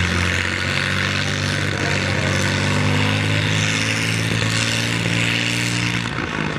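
A removed helicopter engine run on a stand as a stationary engine, running steadily with a low hum and a higher hiss, its pitch holding nearly level.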